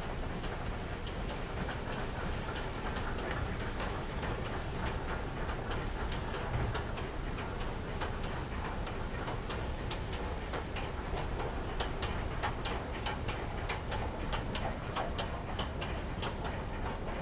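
Descending metro escalator running with a steady low hum and a regular ticking from its moving steps. In the last few seconds, sharper footsteps on a hard stone floor come in as the ride ends.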